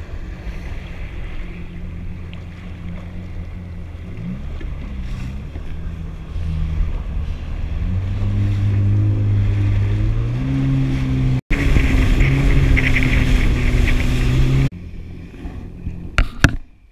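A 2019 Yamaha Waverunner FX HO's four-stroke engine and jet pump pull away: the engine note climbs in steps as the ski speeds up from about four seconds in, then runs loud and steady at speed with wind and water rushing past. It drops suddenly to a quieter level near the end, with a few sharp clicks.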